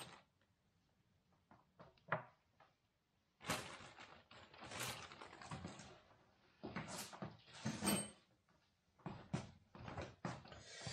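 Irregular knocks, clacks and rustling from hands handling parts and tools at a workbench, including small screws being set down on it.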